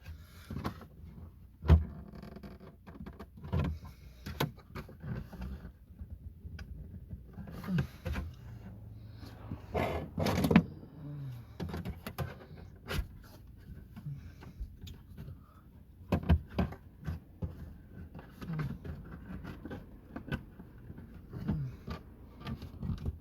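Plastic interior trim panel of a Ford Fiesta being pried and tugged off its retaining clips: irregular clicks, knocks and creaks of plastic, with a few louder knocks.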